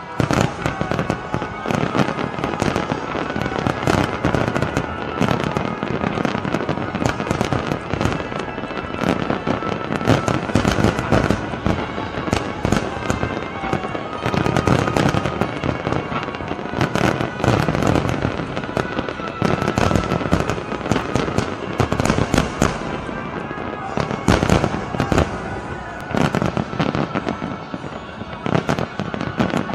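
Fireworks display going off in a dense, continuous barrage of bangs and crackles, with show music playing underneath.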